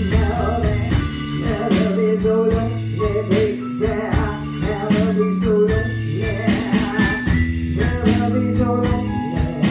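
A small band playing live in a room: electric guitar, keyboard and drum kit, with a woman singing.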